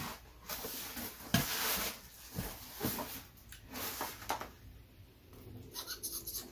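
Cardboard Nike shoebox being handled and its lid worked open: rustling of packaging with a sharp knock about a second and a half in and a few lighter clicks, quieter toward the end.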